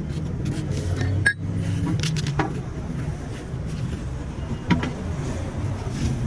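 A vehicle engine running steadily, with a few sharp metallic clinks.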